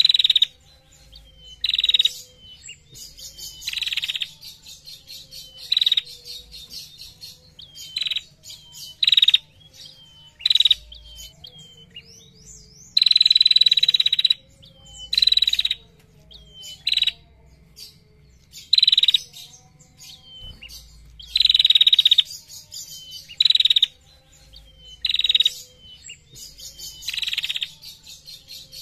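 Female prenjak singing its rapid 'ngetir' chatter: loud, short, fast trills repeated every one to two seconds, some held longer than others.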